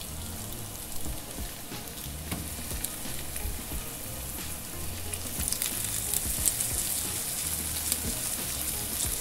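Slices of Dominican salami sizzling in hot olive oil in a frying pan, a steady hiss with small pops that grows louder about halfway through as more slices go in.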